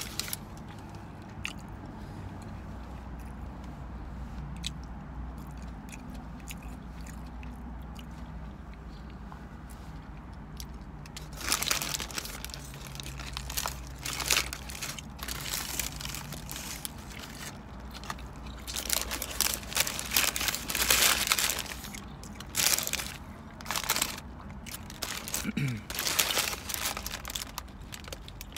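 Chewing a bite of burger over a low steady hum; from about eleven seconds in, paper crinkles loudly in irregular bursts as the burger's paper wrapper is handled.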